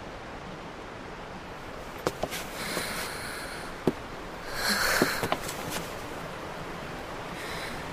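A person breathing in hard and sniffing twice, with a fainter breath near the end and a few small clicks between, over a steady background hiss.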